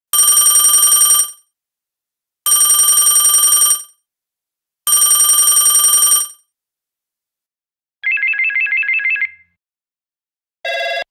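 Telephone ringing: three rapid trilling rings, each about a second and a half long with a short gap between. About eight seconds in comes a different, higher warbling ring, and another electronic tone starts near the end.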